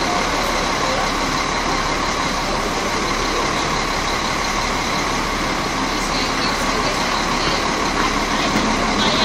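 Stationary bus engine idling steadily, with a constant high whine over the engine noise.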